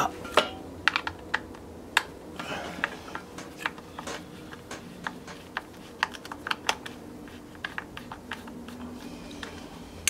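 Irregular light clicks and taps of a flat screwdriver and fingers working at the crankcase and handle mounts of a Farmertec MS660 chainsaw, at times several clicks in quick succession.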